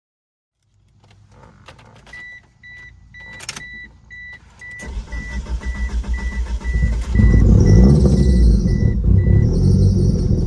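A car's warning chime beeping steadily, then the engine of a 1997 Mitsubishi Eclipse GSX cranking and starting about seven seconds in. It runs with a loud low rumble while the chime stops near the end.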